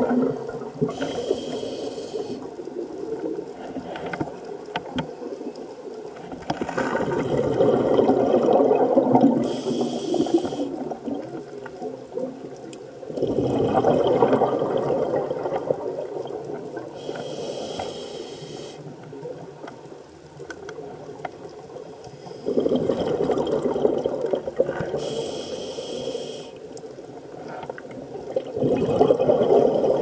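Scuba diver breathing through a regulator underwater: a short hiss on each inhale, then a long bubbling exhale, about every eight seconds, four breaths in all.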